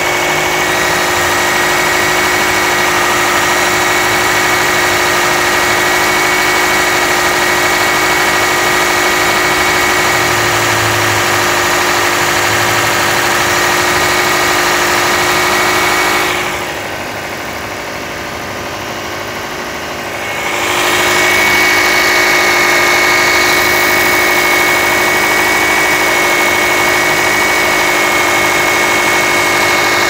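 Chevrolet Ecotec engine idling, heard up close in the engine bay, with a steady whine over the running noise. For about four seconds a little past the middle it is noticeably quieter and duller, then returns to the same level.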